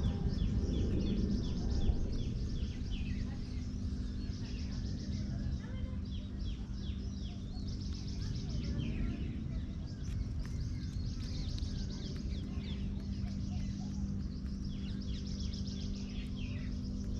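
Small birds chirping: many short, high chirps that fall in pitch and repeat in quick runs throughout, over a low background rumble and a steady low hum.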